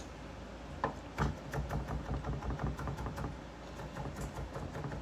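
Chef's knife mincing garlic on a wooden cutting board: a single tap, then from about a second in a steady run of quick blade taps, several a second.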